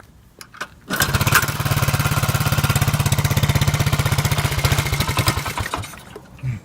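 Honda Z50 minibike's small single-cylinder four-stroke engine, on half choke, catching about a second in and running with a fast, even putter for about four seconds before dying away. The bike has an exhaust leak that the owner is trying to locate.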